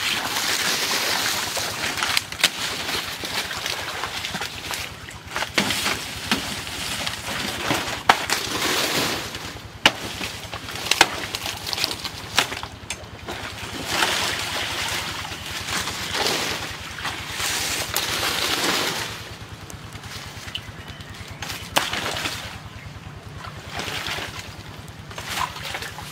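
Machete chopping a banana plant's stalk: scattered sharp knocks, among the rustling and crackling of dry banana leaves being pulled and handled.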